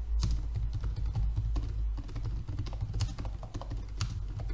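Typing on a computer keyboard: a quick, uneven run of key clicks, over a low steady hum.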